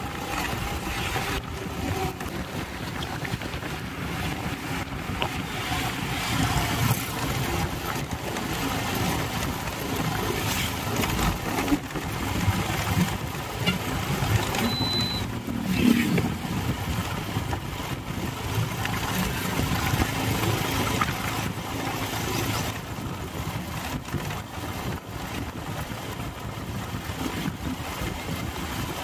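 Borewell drilling rig running: a steady engine noise with a low rumble. A brief high whistle sounds about halfway through.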